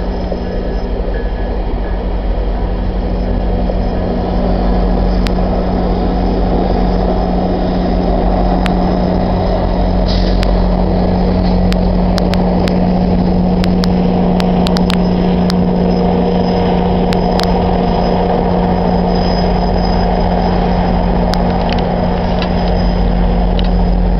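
GO Transit diesel train running with a steady low hum, with scattered sharp clicks and clanks through the middle of the stretch.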